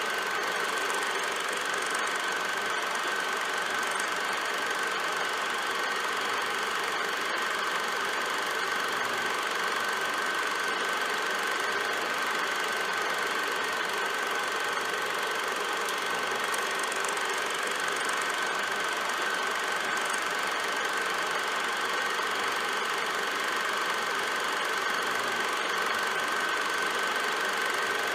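Film projector running: a steady mechanical whirr and clatter with a thin, constant high whine.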